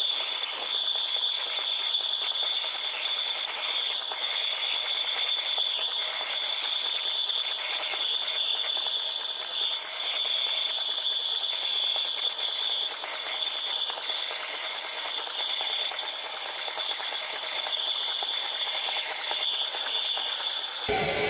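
Vapor honing cabinet's blast nozzle spraying a wet abrasive slurry with compressed air onto a carburetor body: a steady hiss with a high whistling tone running through it.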